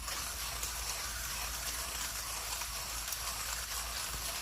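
Millwright hand grinder's burrs crunching coffee beans steadily as the crank is turned, grinding at an espresso-fine setting of 21 clicks.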